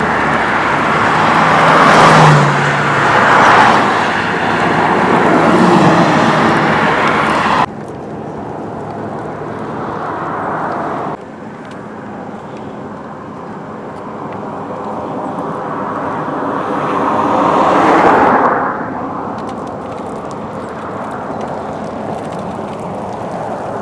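Outdoor wind and road noise with cars passing, swelling loudest a couple of seconds in and again near the end. The sound cuts off abruptly twice to a quieter background.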